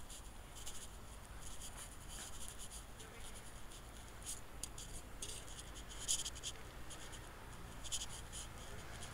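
Faint outdoor ambience: a steady low rumble with irregular short, scratchy high crackles.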